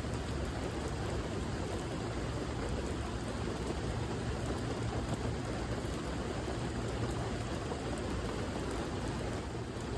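Steady rain falling, an even wash of patter with a deep low rumble beneath it.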